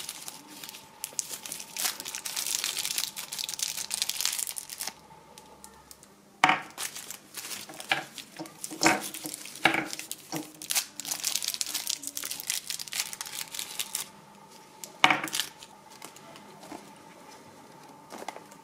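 Crinkly wrappers of twist-wrapped chocolate bonbons being handled and unwrapped: a long run of dense crackling, then shorter bursts of crinkling broken by a few sharp clicks.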